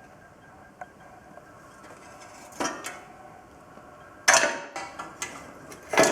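Loose steel pieces clanking and knocking together, with a brief metallic ring after each hit. There are several separate knocks, the loudest two about halfway through and near the end.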